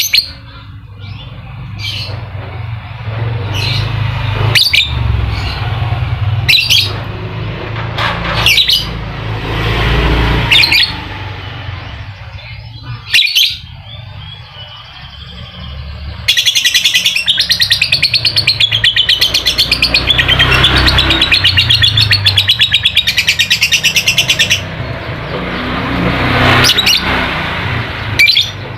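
Lovebirds calling with sharp, piercing shrieks, then one lovebird going into a long, fast, even chattering trill, the 'ngekek', for about eight seconds in the second half.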